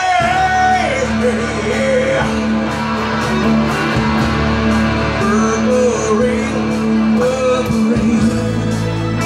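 Slow rock ballad played live on electric guitar, a lead line holding and bending its notes over a steady low accompaniment.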